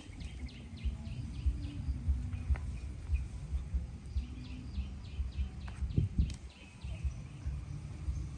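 A bird calling in two quick series of short, high, falling chirps. Under it, low uneven thudding and rumble, with a louder knock about six seconds in.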